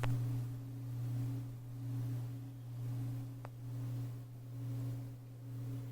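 A steady low hum that swells and fades about once a second, with a faint click about three and a half seconds in.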